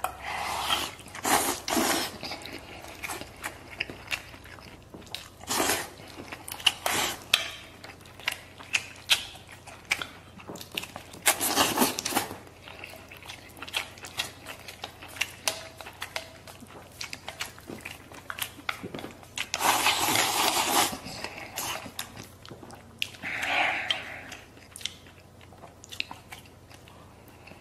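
A person eating a bowl of rice mixed with braised beef, tofu and pickled vegetables, with chewing and crunching and light clicks of wooden chopsticks against the brass bowl. Several louder noisy bursts come as food is shovelled from the bowl's rim into the mouth, the longest about two-thirds of the way in.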